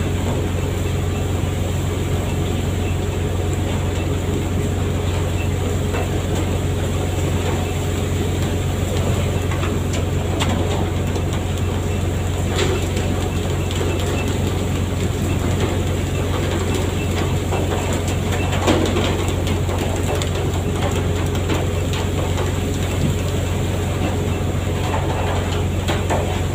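Fishing boat's engine running with a steady low drone, with scattered knocks and clatter over it; the sharpest knock comes about two-thirds of the way through.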